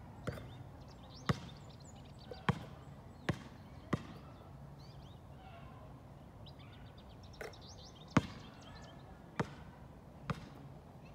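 A basketball bouncing on a hard court: about eight sharp single bounces at uneven spacing, five close together at first, then a pause of about four seconds before three more.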